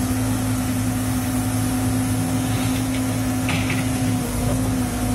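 Caterpillar 307E mini excavator's diesel engine running steadily with an even drone.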